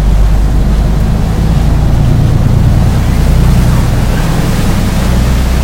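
Khlong Saen Saep canal boat's diesel engine running loudly close by, a steady low drone with water churning.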